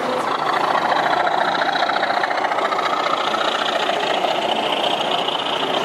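Diesel engine running sound from a sound-fitted model diesel locomotive as it moves along the layout, a steady rumble with a fast fine flutter.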